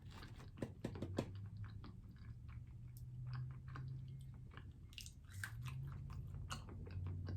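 A person chewing fried food, likely french fries, close to the microphone: a run of small, irregular wet mouth clicks and soft crunches.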